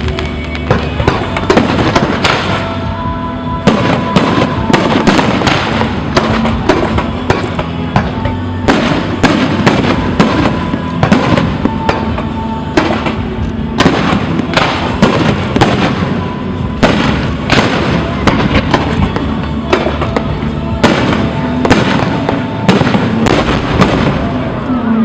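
Fireworks exploding in rapid, overlapping bursts, several a second, with music playing underneath.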